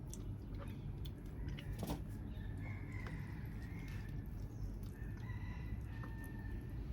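Birds calling in the background, a series of short, steady whistled notes, with scattered light clicks and taps.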